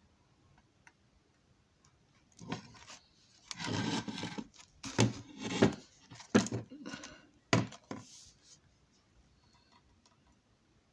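Handling noise: rubbing and a handful of short knocks over a few seconds in the middle, as a small model building is moved about on a tabletop.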